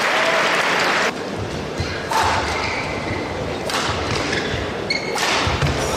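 Badminton doubles rally: several sharp racket strikes on the shuttlecock a second or more apart, with players' footfalls thumping on the court and short shoe squeaks. Crowd noise in the hall drops off about a second in and rises again near the end as the rally finishes.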